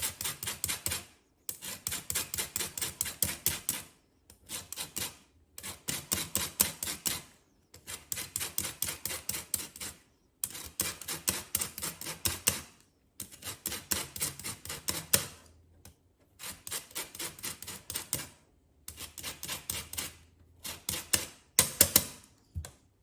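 Lemon rind being grated on a zester: rapid scraping strokes, about five a second, in bursts of a couple of seconds with short pauses between.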